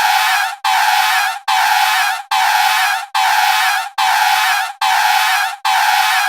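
Tyre screeching in a burnout, heard as short high squeals of under a second each. They repeat a little faster than once a second, and each stops abruptly.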